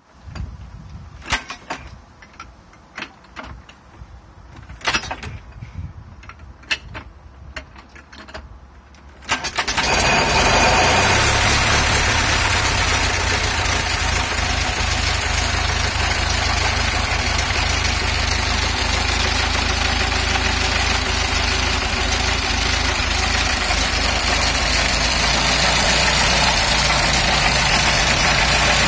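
Vintage Red Wing four-cylinder inboard marine engine being started. For about the first nine seconds there are only scattered clicks and knocks. Then it catches and runs steadily at idle for the rest.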